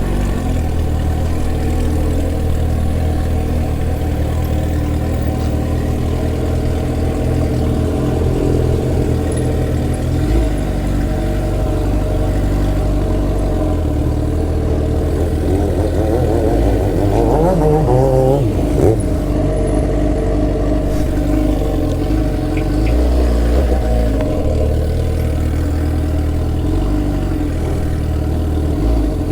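Sport motorcycle engine running steadily at low road speed, with one short rev that rises and falls a little past halfway through.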